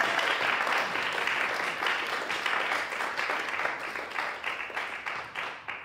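Audience applauding, steadily fading and thinning to a few scattered claps near the end.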